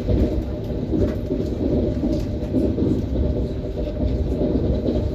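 ES1P Lastochka electric train rolling along the track: a steady low rumble of wheels on rails, with a few faint clicks.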